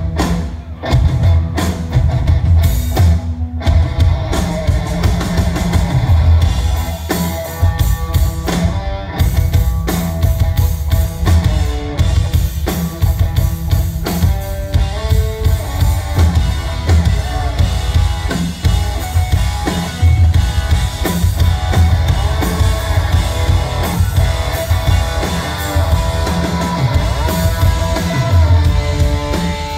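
Live rock band playing loudly, with a driving drum kit and electric guitar.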